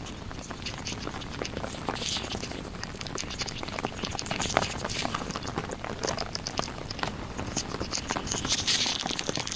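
Heavy monsoon rain: many irregular drops ticking and pattering over a steady hiss, the hiss swelling louder near the end.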